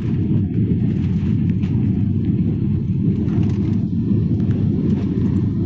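Steady low rumble of an airliner's engines and airflow, heard inside the passenger cabin.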